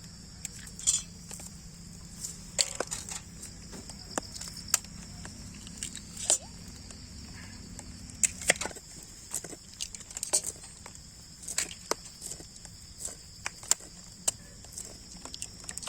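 Raw eggs being cracked and broken into a vessel: a series of sharp, irregular taps and cracks of shell on a hard rim, over a steady high hiss.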